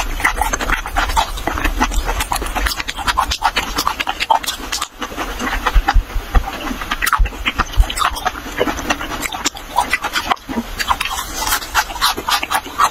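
Close-miked mouth sounds of someone chewing raw fish slices and then a mouthful of green sprouts: a dense run of quick wet smacks and clicks.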